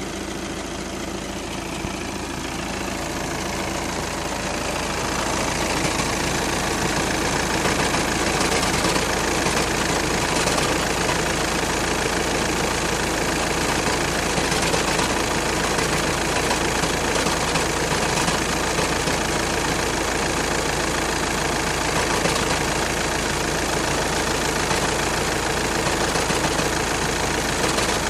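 2012 Volkswagen Passat running with a continuous rattling noise. It grows louder over the first few seconds, then holds steady.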